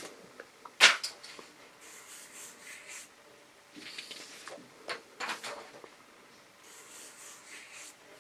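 Marker scratching across paper in short strokes while drawing a line, with a sharp knock about a second in.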